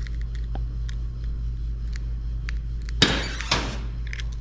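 Door popper releasing the latch on a 1949 Studebaker suicide door. A sharp clack about three seconds in, then a second, smaller knock half a second later as the door pops open.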